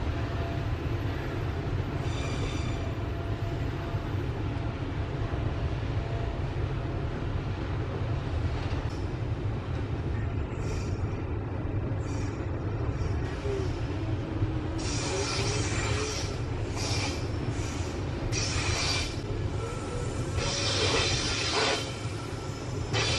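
Loaded coal hopper wagons of a long freight train rolling past with a steady low rumble. From about two-thirds of the way in come repeated short bursts of high-pitched wheel squeal as the wagons pass.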